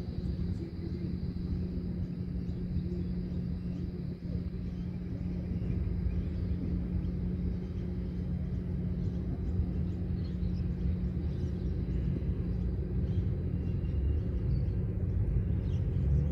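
Open-air ambience of a park field: a steady low rumble with a constant low hum, and faint short high chirps scattered through it.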